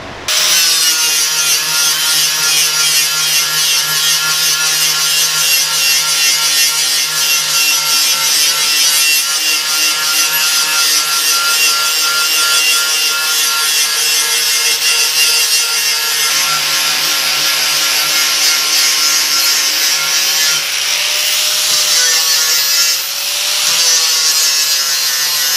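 Angle grinder with a flap disc, stood on edge and run along aluminum diamond plate to rough up the metal for adhesive: a steady motor whine over a scratchy grinding hiss. The motor pitch wavers a little in the last few seconds.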